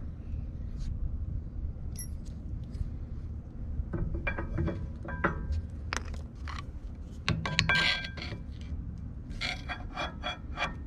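Metal clicks, clinks and taps as new brake pads are worked into a rear disc-brake caliper by hand and with a hand tool. The clicks cluster in the second half, some with a short metallic ring.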